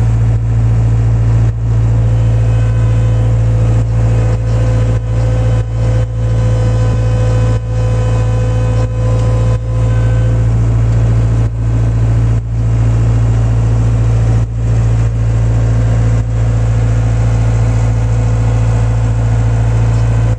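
Bobcat skid-steer loader's engine running steadily, heard loud from inside the cab while the machine works, with brief irregular dips in level every second or two.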